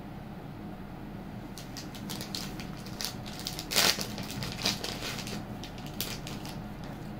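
Handling noise as beaded jewellery is moved about: a run of rustles and light clicks starting about one and a half seconds in, loudest about four seconds in, over a steady low hum.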